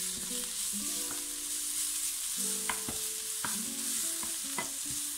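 Onions and grated garlic sizzling in hot oil in a nonstick frying pan while a wooden spatula stirs them, with a steady hiss and a few short taps and scrapes of the spatula against the pan.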